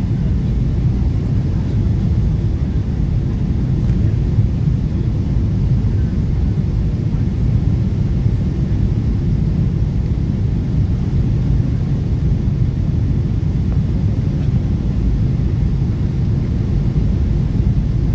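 Jet airliner cabin noise heard from a window seat: a steady low rumble of engines and rushing air during the approach to land.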